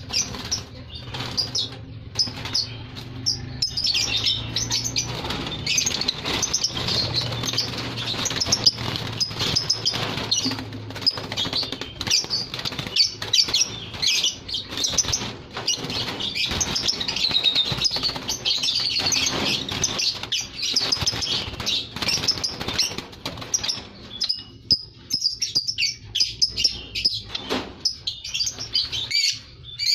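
Lovebirds chirping in a rapid, shrill chatter, with wing flutters among the calls; the chatter thins to scattered chirps for a few seconds near the end.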